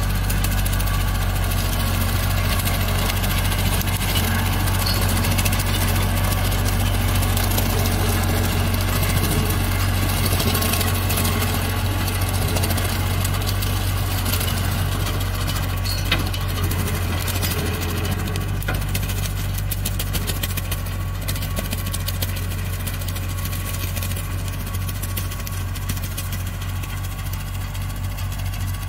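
Bobcat compact tractor's diesel engine running steadily under load, driving a heavy-duty 1970s brush hog (rotary cutter) through tall grass. The sound eases off slightly toward the end as the tractor moves away.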